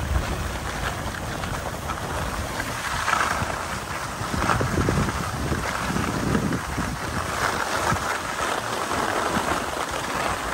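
Wind on the microphone and skis scraping and carving over hard-packed groomed snow. It is a steady rush that swells and fades every second or two with the turns.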